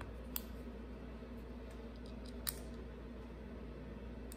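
Faint clicks and light taps of small carburetor parts being handled on a workbench, with two sharper clicks, one about half a second in and one about two and a half seconds in.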